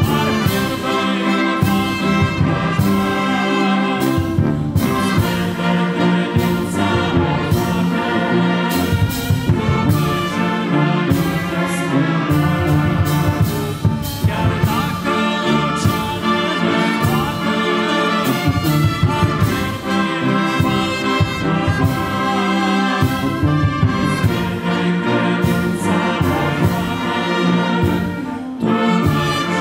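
Church brass band of trumpets, trombones and tubas playing a hymn together over a strong bass line, with brief breaks between phrases.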